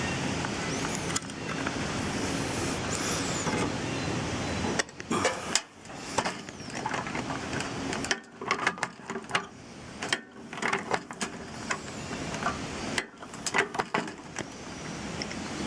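A small power drill runs steadily against aluminum gutter stock for about five seconds. After that come many sharp metallic clicks and clanks as the gutter parts are drilled and riveted.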